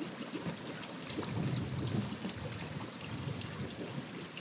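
Shallow cold sulfur spring pools burbling as volcanic gas bubbles up through the water, an irregular gurgle that grows louder about a second in, then eases.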